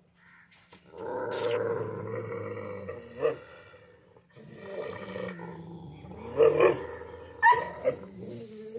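Dog growling in two long, low stretches, the second with a few louder snarls in its second half: food-guarding aggression over food.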